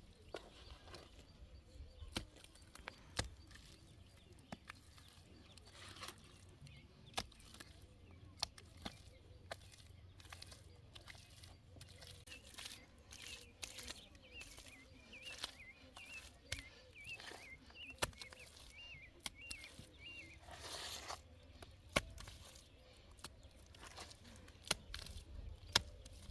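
Quiet outdoor sound of scattered clicks, knocks and rustles, with a bird chirping repeatedly in the middle and a faint low rumble underneath.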